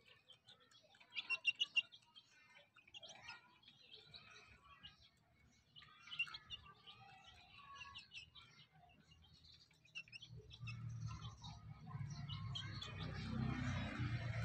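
Birds chirping: many short, high tweets, in a quick loud cluster between one and two seconds in. From about ten seconds in a steady low rumble builds beneath them.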